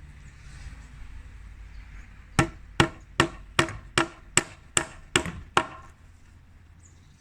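Hammer driving a galvanised twist nail into a ridge rafter connector: nine quick, even blows at about two and a half a second, starting a couple of seconds in.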